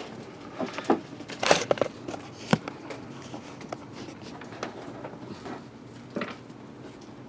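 A sealed cardboard box of baseball cards being handled: scattered taps, knocks and rustles, with a louder rustle about a second and a half in and a sharp knock about a second later.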